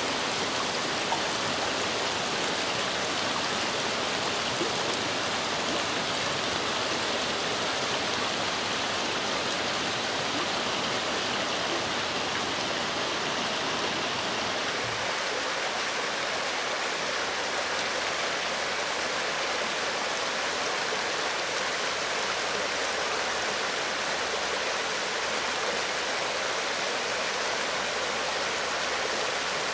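Shallow mountain stream rushing steadily over stones, with less low rumble from about halfway through.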